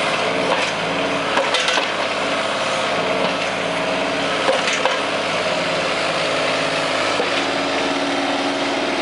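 Two Husqvarna 3120 XP two-stroke chainsaws driving one long double-ended bar, running steadily under load as they cut through a tree trunk.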